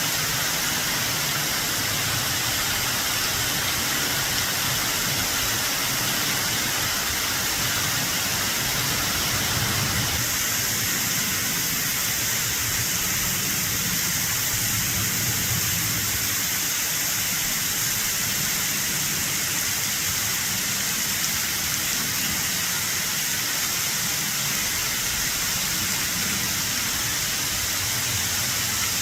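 Waterfall cascading off a cliff at high spring run-off flow: a steady rushing hiss over a low, uneven rumble.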